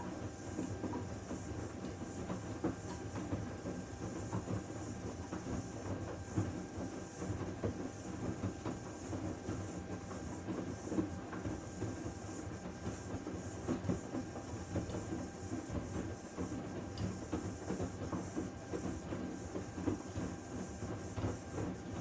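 Panasonic VX6 StainMaster+ front-loading washing machine in its main wash: the drum turns with clothes and water churning and sloshing in an uneven rhythm over a faint steady whine.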